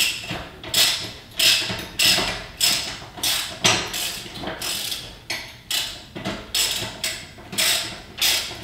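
Socket ratchet working a bolt loose, its pawl clicking in a steady rhythm of about two strokes a second.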